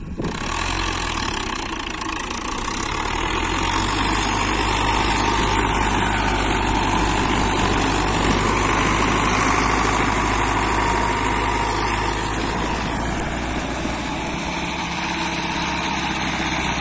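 Belarus MTZ tractor's four-cylinder diesel engine running steadily close by as the tractor works across a soft, wet field, getting louder about four seconds in.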